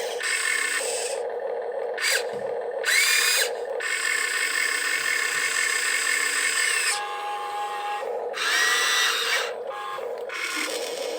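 Small electric motors and plastic gearboxes of RC construction machines whining as they run, with short whines that rise in pitch, about two seconds in and again about eight seconds in.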